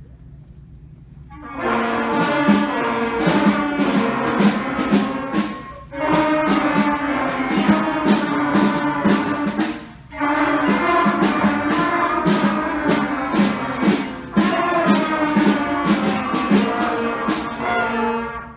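Youth concert band playing, led by brass with trombones and trumpets, over a steady beat. The music starts about a second and a half in, breaks off briefly twice between phrases, and stops near the end.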